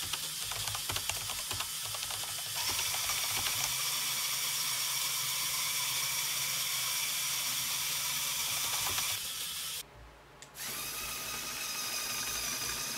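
Quick rapid clicking for about two seconds, then a steady mechanical whir with a high whine. After a short drop about ten seconds in, a Lego Technic motor and its gear train whine steadily as a tracked Lego vehicle drives.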